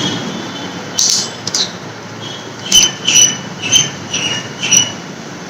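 Helmet intercom mount being screwed tight with a screwdriver: two sharp knocks, then five short squeaks about half a second apart, the plastic squeaking as the screw turns.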